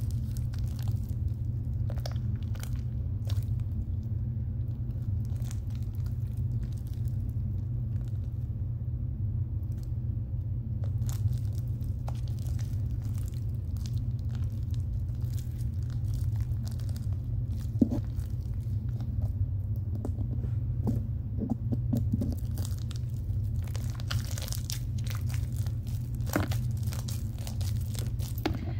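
Hands kneading fluffy slime: scattered sticky crackles and squishes over a steady low rumble.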